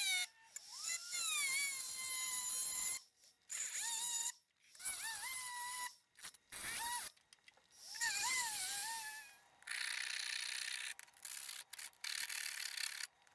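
Flexible-shaft rotary tool grinding a window into a steel Beretta 92 magazine, its high whine rising and falling in pitch as the bit bites and eases off, in several short stretches broken by brief gaps. Near the end the whine gives way to a rougher, hissing grind.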